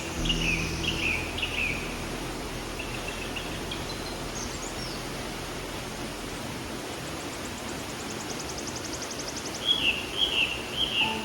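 Stream water flowing steadily, with wild birds singing over it: short chirping phrases near the start and again near the end, and a fast, high trill in the middle.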